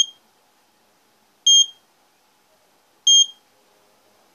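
Built-in buzzer of an AVISS RP ADDRES IV fire alarm repeater panel giving short high-pitched beeps, one about every one and a half seconds, three in all. This is its fault signal for a link failure (défaut de liaison): the repeater is powered but not connected to the fire detection control panel.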